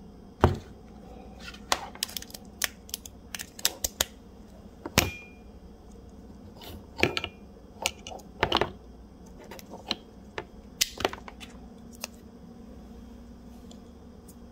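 Irregular sharp clicks, taps and knocks of small hard objects being handled and set down on a table, some ringing briefly; they come thickest in the first half and again around the ninth and eleventh seconds.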